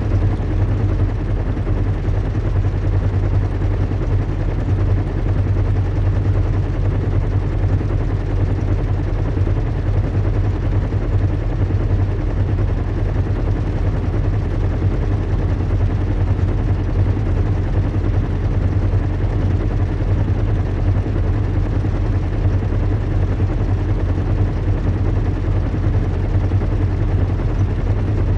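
Recreated ambience of a zeppelin airship in flight: a steady low engine drone under an even hiss, unchanging throughout.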